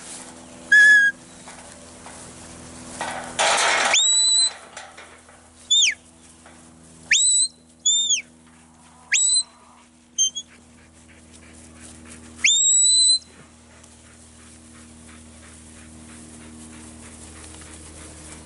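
A handler's whistled herding commands to a working dog: about seven short, loud whistle notes, some rising and some dropping in pitch, with one longer blast near the end. A brief rush of noise comes a few seconds in.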